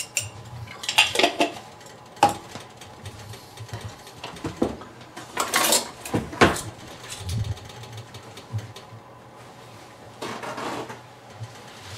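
Kitchenware clattering: scattered short knocks and clinks of metal utensils and pans handled near the carbon steel wok, about half a dozen, with a faint steady low hum beneath.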